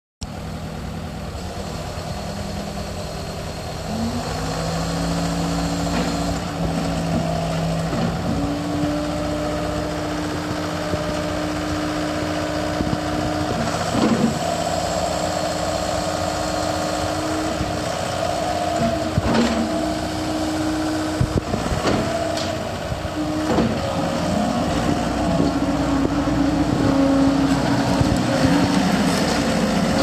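John Deere 323E compact track loader's diesel engine running, revving up about four seconds in and again about eight seconds in, with a higher whine over it as the lift arms are worked. Several sharp clunks come through at intervals.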